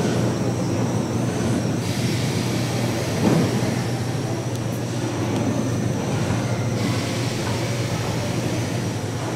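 Steady low hum over an even wash of background noise, with a brief louder sound a little over three seconds in.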